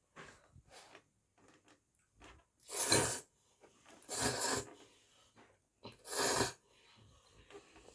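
A person eating spicy instant noodles makes three loud, airy mouth noises, each about half a second long, with faint small clicks of utensils and chewing between them.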